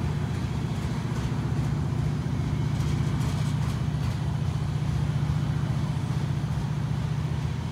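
An engine idling: a steady low drone with an even throb that does not change.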